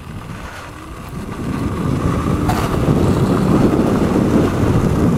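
Home-built electric bike rolling along a gravel path: tyres crunching on loose gravel with wind buffeting the microphone. It grows louder over the first few seconds, then holds steady.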